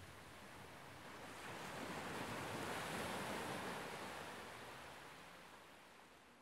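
A soft, even rushing noise with no tone in it, swelling to a peak about three seconds in and then fading out.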